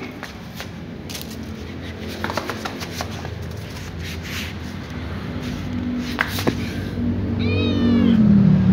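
Kitten meowing once, a short wavering call near the end, after several seconds of scattered faint clicks and a low hum.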